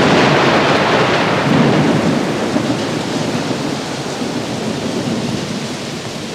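A loud, even rushing noise like heavy rain, starting suddenly just before and slowly fading away.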